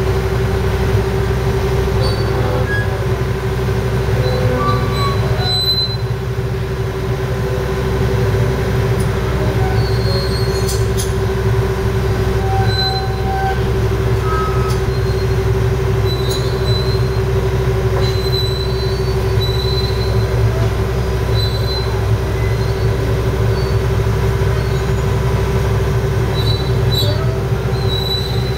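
John Deere excavator's diesel engine running steadily under load with a constant whine, while the machine travels on its tracks with short, high squeaks scattered throughout from the undercarriage.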